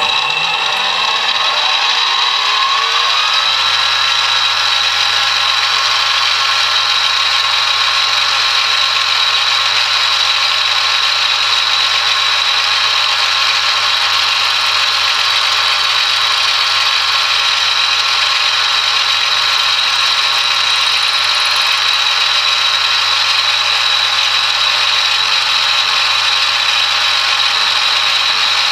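Benchtop mini milling machine switched on: the spindle motor spins up with a rising whine over about three seconds, then runs steadily with a constant high-pitched whine.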